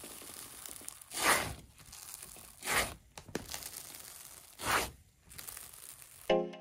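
A gloved hand pressing and stroking a white textured slime in a plastic tub: soft sticky crackling, with three louder squishes about a second and a half apart. Music with a steady beat cuts in near the end.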